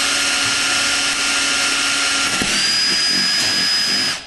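Cordless drill running steadily as it bores a small pilot hole in the van's roof; about two and a half seconds in its whine steps up in pitch, and it stops suddenly near the end.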